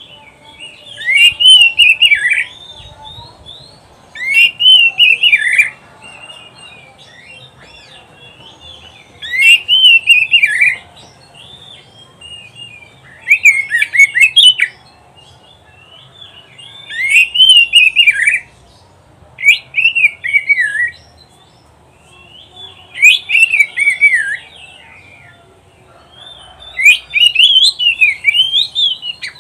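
Oriental magpie-robin (kacer) singing: about eight short, loud phrases of quick sweeping whistles and harsher notes, each lasting a second or two, with brief pauses between them.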